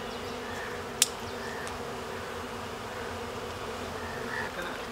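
Honey bees buzzing in a steady hum around an open hive frame of comb. A single sharp click sounds about a second in.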